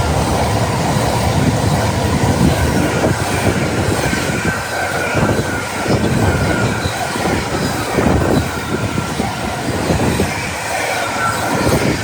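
Train passing at close range: a loud, continuous rumble of wheels on rails, with a faint high wheel squeal at times.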